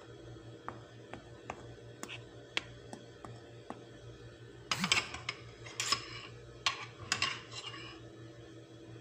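Light kitchen handling noises while assembling a cracker-and-cream dessert in a ceramic baking dish: a few scattered small taps and clicks, then louder bursts of clicking and clattering about halfway through, over a steady low hum.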